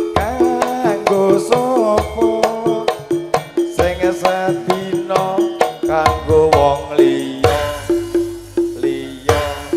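Javanese gamelan music accompanying tayub dance: drum strokes keep a steady beat under repeated metallophone notes, with a wavering melody line above.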